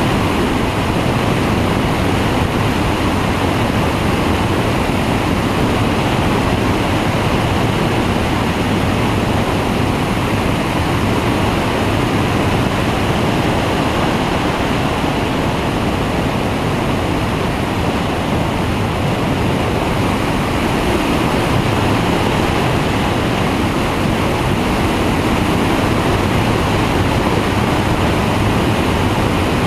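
Flexwing microlight trike in cruise flight: a steady, loud rush of airflow and wind over the microphone, with the engine and pusher propeller droning underneath.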